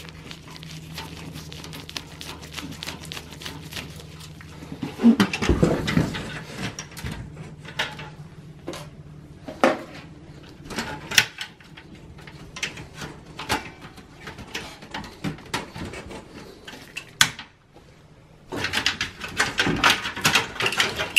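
Scattered clicks, taps and metal clanks as a Dell Precision T5500's steel chassis and front I/O panel are worked loose by hand and unscrewed. A denser flurry of clicks comes near the end. A faint low hum runs underneath and stops shortly before that flurry.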